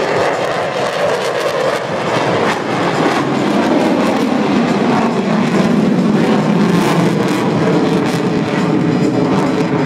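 F-15SG fighter's twin engines in full afterburner: loud, steady jet noise with crackling all through it, building a little over the first few seconds.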